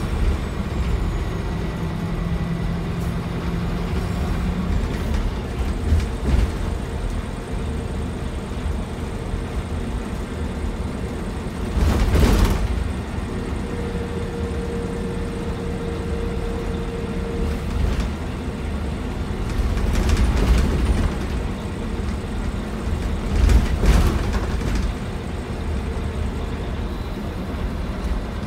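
Scania K340EB4 coach with Irizar PB body heard from inside the cabin while under way: steady engine and road noise. Several thumps and rattles cut through it, the loudest about twelve seconds in, with more around twenty and twenty-four seconds.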